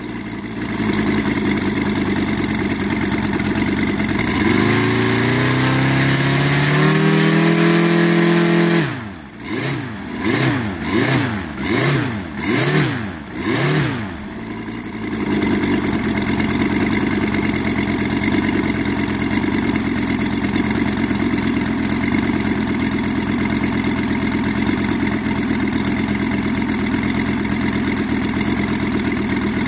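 Petrol model-aircraft radial engine with a 32x12 propeller running on a test stand. It speeds up about four seconds in, is then throttled up and down about five times in quick succession, and settles into steady running. It is fed without a fuel pump.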